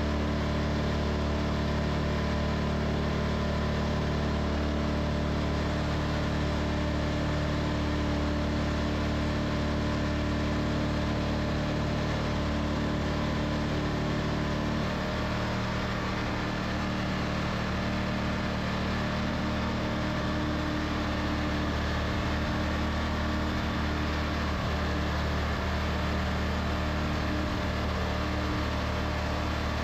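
Wood-Mizer LT40 sawmill engine running steadily, a low even hum whose tone shifts slightly about halfway through.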